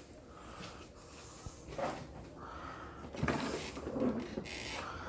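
Faint clicks, knocks and rattling from a Lawn-Boy self-propelled mower's loose drivetrain and drive wheel as the mower is moved by hand with its engine not running.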